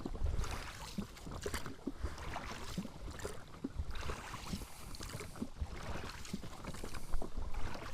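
Oars rowing a small boat: repeated swishing strokes through the water, with light knocks from the oars.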